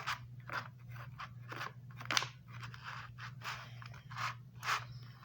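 A knife cutting and sawing at toy packaging to open it: a run of irregular short cutting strokes, about two to three a second, over a steady low hum.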